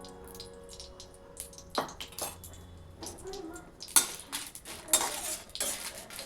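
Metal utensils knocking, clinking and scraping against cookware. Two sharp knocks come about two seconds in, and a louder run of clatter starts about four seconds in.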